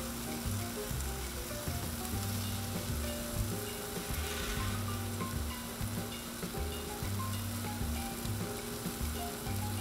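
Thick-cut bacon strips sizzling steadily on a hot flat-top steel griddle, frying on low to medium-low heat. Soft background music with a stepping bass line plays underneath.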